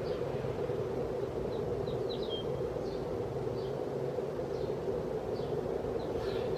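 1979 Envirofan 52-inch ceiling fan running on high: a steady, pretty loud rush of moving air over a low motor hum. Faint short high chirps come and go over it.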